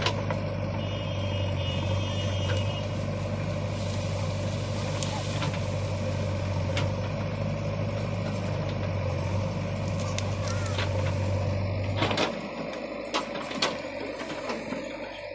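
A JCB construction machine's diesel engine running steadily with a low drone, with a short run of high beeps early on. About twelve seconds in, the low drone drops away, followed by a few sharp knocks.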